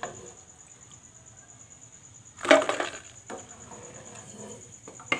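Crisp fried sooji puris (golgappe) being lifted from hot oil on a metal slotted spoon and knocking together: one loud clatter about halfway through, a lighter knock just after it, and another sharp knock near the end.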